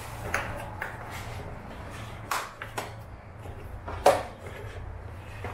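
Hard plastic side skirt extensions being handled and pressed into place, giving several short knocks and taps, the loudest about four seconds in, over a low steady hum.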